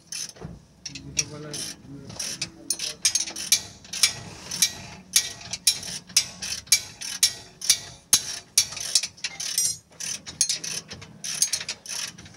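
Metal hand tools clicking in quick repeated strokes, a few a second, with a small low hum under them: mechanics working on a car's underchassis.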